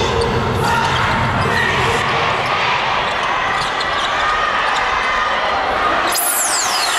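A basketball being dribbled on a hardwood court amid steady arena crowd noise. Near the end, a high-pitched sweep falls quickly in pitch.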